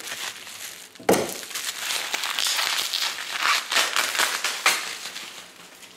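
Plastic bubble wrap crinkling and crackling as it is pulled and torn off a hot sauce bottle, starting with a sharp crackle about a second in.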